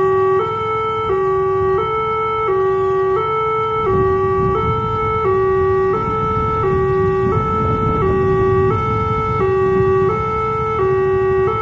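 Railway level-crossing warning alarm sounding from the signal post's loudspeaker while the barrier is down, a steady two-tone high-low electronic tone switching about every 0.7 seconds. A low vehicle rumble joins in about four seconds in.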